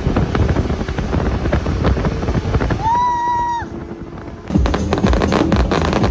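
Fireworks going off: a rapid crackle of pops, a short high whistle about three seconds in, then a brief lull and a louder run of bangs and crackling.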